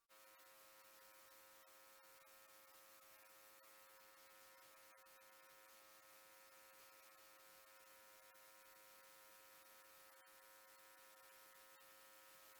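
Near silence: a faint, steady hum of several fixed tones over a light hiss, starting abruptly and holding unchanged.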